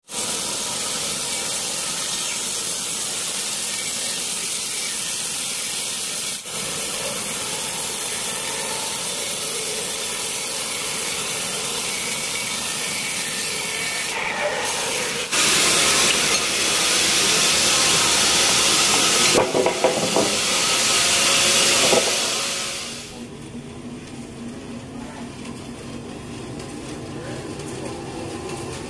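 Sawmill band saw running and cutting through a large teak log: a steady, noisy machine sound. It grows louder with some pitched ringing from about halfway through, then drops to a quieter run for the last few seconds.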